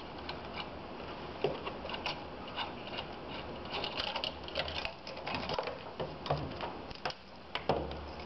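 Irregular small metallic clicks and taps as a wrench works the fitting and the copper oil line to the nozzle is unscrewed from the oil burner's pump and pulled free.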